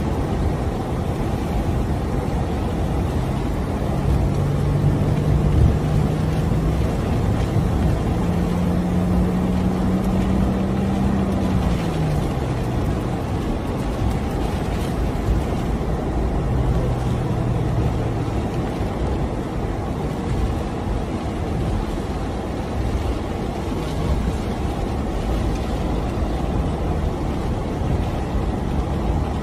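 Car driving through floodwater: a steady rush of water spray and tyre noise, with an engine note that rises over several seconds and then drops away, returning briefly later.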